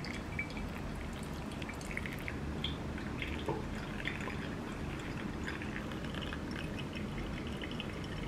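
Hot water poured in a thin stream from a gooseneck kettle onto coffee grounds in a glass pour-over dripper, with coffee dripping into the glass server below as many small, light drips.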